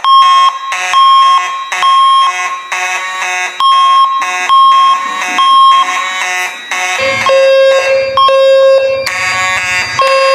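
Voice-evacuation fire alarm system sounding its electronic alert tone between spoken evacuation messages: a stack of tones near 1 kHz pulsing on and off in a repeating pattern. About seven seconds in a lower, buzzing horn-like tone joins.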